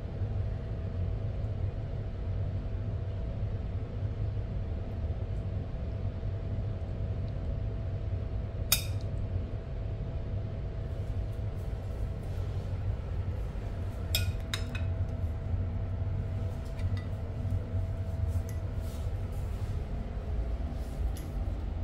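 Occasional clinks of cutlery and dishes: one sharp clink about nine seconds in, a couple more midway, and a scatter of light ones near the end, over a steady low hum.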